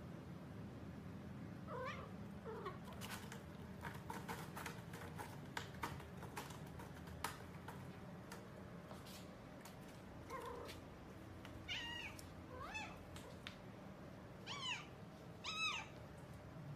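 Domestic cat meowing, about seven short meows that rise and fall in pitch: two soft ones early, then a run of louder ones in the second half. Scattered light clicks and taps fall in between.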